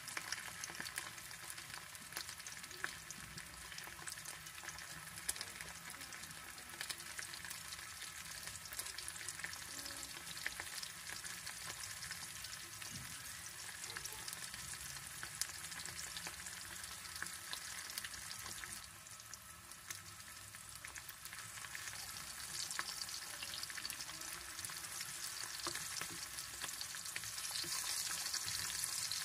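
Sausage slices frying in hot oil in a non-stick pan: a steady sizzle dotted with small crackles and pops, getting louder over the last few seconds.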